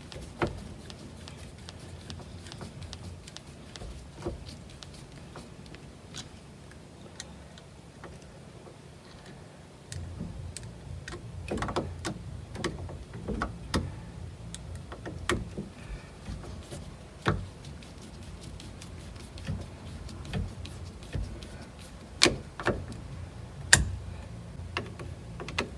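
Scattered small clicks and taps of a screwdriver and screws as a turn signal switch is screwed into a steering column. A faint low hum comes in about ten seconds in.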